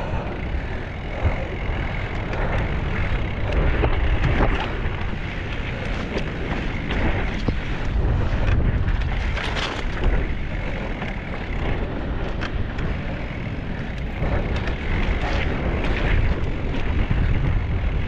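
Wind buffeting the camera microphone in a steady low rumble while a mountain bike rolls over a path and then rough sandstone rock, its tyres hissing and the bike giving off scattered short knocks and rattles.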